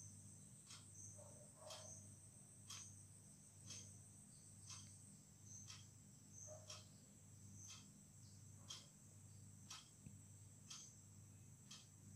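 Near silence: faint, evenly spaced ticks about once a second over a low hum. The spatula turning the gourd in the pan is not heard.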